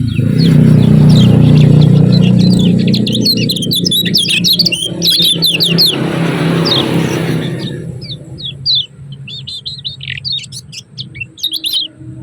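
Kecial kuning (white-eye) giving rapid, high 'ciak ciak' chirps in quick runs. A loud low rumble covers the chirps at first and fades away about eight seconds in.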